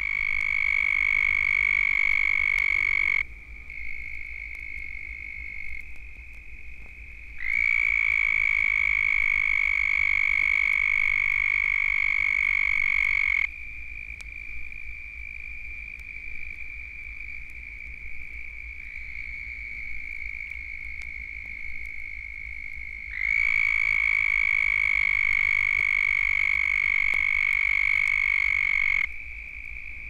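Large breeding chorus of southern toads (Bufo terrestris), played back from a vinyl LP: a steady high trill runs throughout, and three much louder trills of about six seconds each stand out over it, one ending a few seconds in, one in the first half and one near the end.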